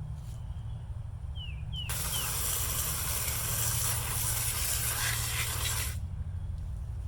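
A jet of cleaning spray hissing steadily for about four seconds, starting about two seconds in and cutting off sharply, over a low steady hum; a bird chirps a few times before the spray starts.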